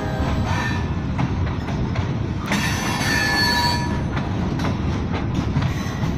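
Wisconsin & Southern freight train rolling past at close range: a steady rumble with wheels clicking over the rail joints. About two and a half seconds in, a high wheel squeal and hiss rise over it for about a second.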